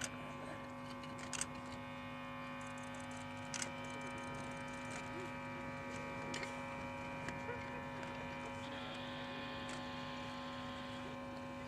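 A steady hum of several fixed tones that stay unchanged in pitch, with a few faint clicks.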